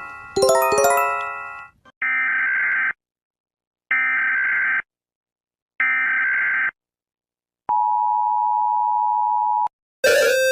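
Emergency Alert System broadcast sequence: a chime-like jingle fades out, then three one-second bursts of buzzy SAME header data tones about a second apart, then the steady two-tone EAS attention signal held for about two seconds. A new electronic melody starts near the end.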